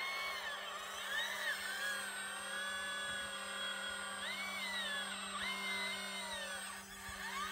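The hydraulic pump of a radio-controlled scale excavator whines over a steady low hum. Its pitch rises and falls again and again as the boom and bucket are worked.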